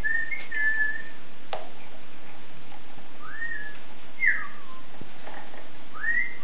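Major Mitchell's cockatoo giving about five short whistled notes, some rising and some falling, with two sharp knocks in between.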